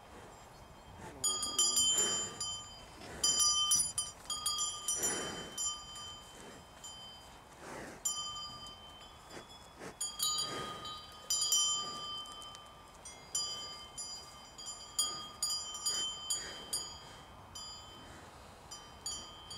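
Cowbells on a herd of grazing cattle clanking irregularly as the cows move, several bells ringing together and overlapping, starting about a second in.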